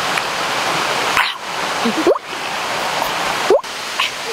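A steady rushing hiss that breaks off briefly a few times, with short rising vocal exclamations about two seconds in and again near the end.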